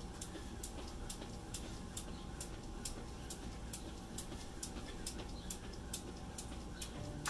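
Jump rope slapping a concrete patio on each turn in a steady rhythm, about two and a half sharp ticks a second.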